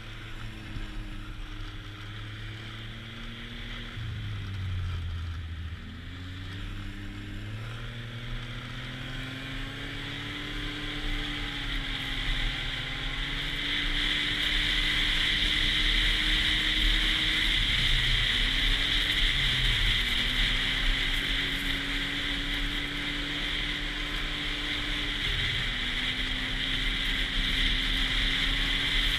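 Snowmobile engine running under way on a trail, its pitch rising and falling with the throttle and dipping a few times. From about halfway through, a loud steady hiss builds up over it.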